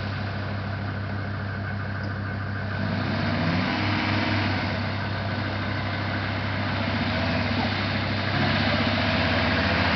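Mercedes-Benz G-Class 4x4's engine pulling at low revs as it crawls up a rutted dirt track, getting louder as the vehicle nears, with a step up in loudness about eight seconds in.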